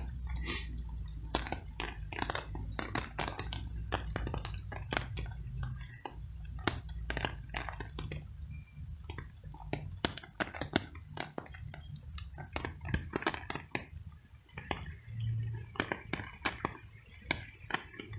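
Stray tabby cat chewing small pieces of cooked veal: a quick, irregular run of wet smacking clicks.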